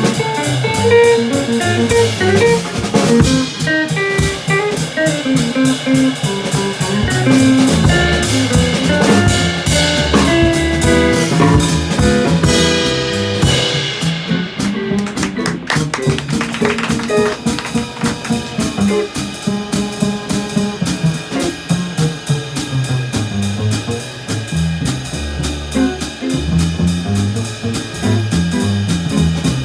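Instrumental jazz-style music: guitar playing over a drum kit with a steady beat; the cymbals briefly drop out about halfway through.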